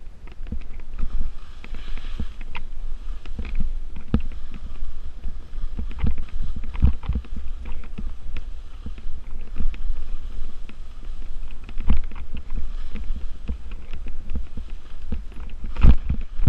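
Skis turning through heavy spring slush: uneven swishing scrapes as the edges cut the soft snow, with frequent knocks and thumps as the skis hit chunks of chopped snow. The sharpest knock comes near the end.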